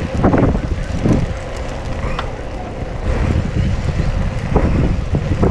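Wind rumbling on the microphone of a moving bicycle rider, with brief snatches of voices.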